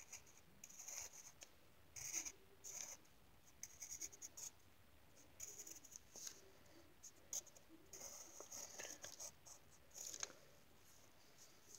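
Pencil scratching across lined paper in short, faint strokes with brief pauses between them, as lines of a drawing are sketched.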